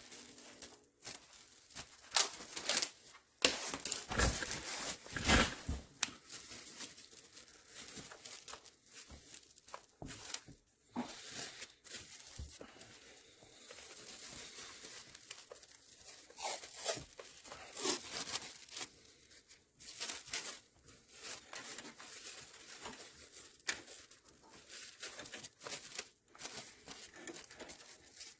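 Plastic cling wrap crinkling and adhesive tape being pulled off the roll and torn, in irregular bursts, as a wiring connector is wrapped and sealed.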